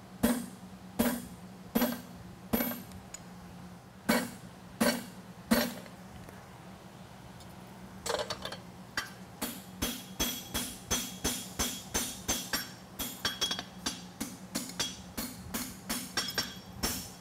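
Hand hammer striking a punch driven through hot steel on an anvil: six separate blows, punching the rivet eye in a tong rein. From about eight seconds in, a quicker run of lighter hammer blows on the anvil, about two a second with a ringing note, dressing the boss around the punched hole.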